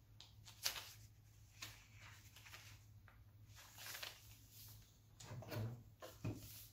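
Sheets of paper rustling and crinkling as they are handled and smoothed flat on a cloth-covered table, in several short bursts. Near the end come a couple of soft knocks as a clothes iron is set down on the paper.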